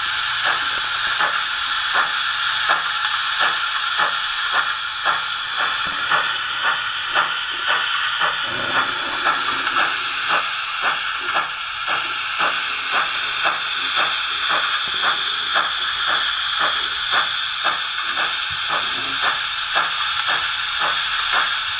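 Model steam locomotive sound from a LokSound 3.5 decoder played through a small 20x40 speaker in a Hornby Duchess: steady steam-exhaust chuffs, about two to three a second, over a continuous hiss.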